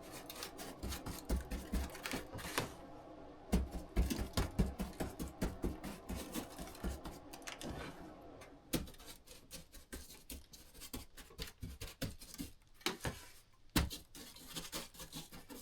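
A brush dabbing and scraping wet mortar mix onto the rough course surface, a quick irregular run of soft taps and clicks that thins out in the second half.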